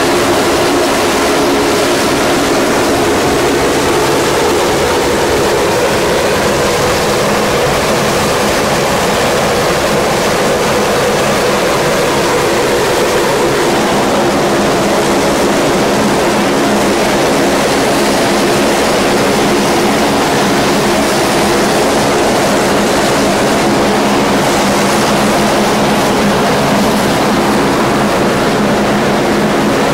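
Saab 340 turboprop airliner's engines running, a loud steady drone with a constant hum that holds its pitch throughout.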